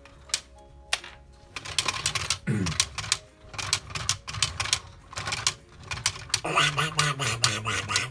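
Plastic Lego parts clicking, with the brick-built duck pull toy's beak mechanism clacking open and shut. A few separate clicks come first, then a rapid clatter from about a second and a half in.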